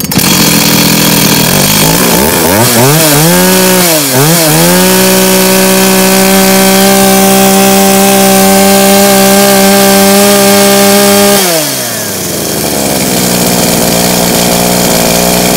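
Echo V4004 44cc two-stroke chainsaw engine idling, then revved up about two seconds in, dipping briefly, and held at high revs for about seven seconds. Near the end it drops back to a steady idle.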